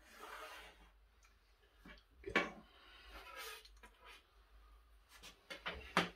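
Marking tools handled on an MDF board: a short pencil scratch along a spirit level, then a few sharp knocks and scrapes as the level and steel rulers are moved and set down. The loudest knocks come about two and a half seconds in and near the end.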